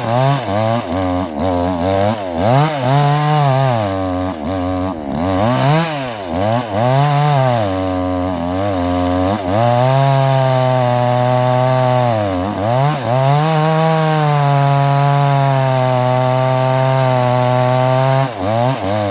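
Chainsaw engine cutting wood: its pitch dips and recovers again and again for the first dozen seconds, then holds steady at high speed, with a short dip near the end.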